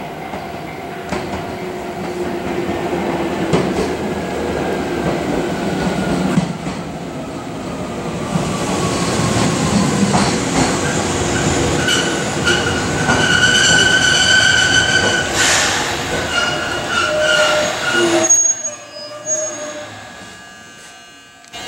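Chichibu Railway 7000 series electric train pulling into the station. A falling whine as it slows, then a high squeal as it brakes to a stop; the squeal cuts off suddenly about eighteen seconds in.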